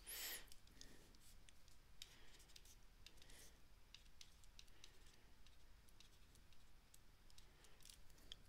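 Near silence: faint scattered clicks of a stylus writing on a tablet, after a short breath at the very start.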